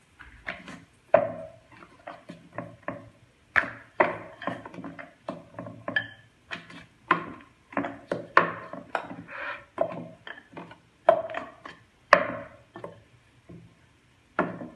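Wooden rolling pin knocking and clacking against a round metal rolling board as paratha dough is rolled out: irregular sharp knocks, about two or three a second, some with a short ring.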